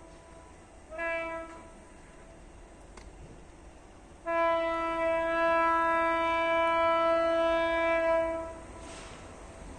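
Air horn of a TCDD DE 22000-class GM/EMD G26CW-2 diesel locomotive sounding: a short blast about a second in, then a long, steady blast of about four seconds.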